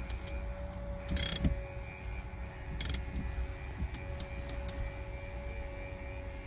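Windshield cut-out cord tool pulling its cutting line through the urethane bead with a sawing motion. The cord makes light mechanical clicks, with two short, louder scraping bursts about one and three seconds in.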